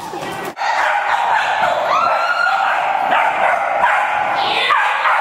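Puppies whining and yipping, in high cries that rise and fall, continuous from about half a second in.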